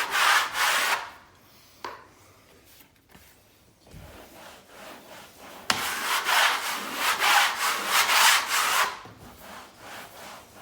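Wallpaper spatula scraped in repeated strokes across glued wallpaper, working excess glue out from under the paper. A short run of strokes at the start, a quiet gap, then a longer run from about halfway to near the end.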